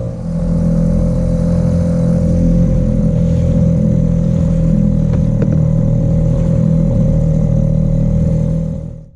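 2001 Mercury 2.5 hp two-stroke outboard motor running steadily at a constant speed, pushing a small boat across a lake. The sound cuts off suddenly near the end.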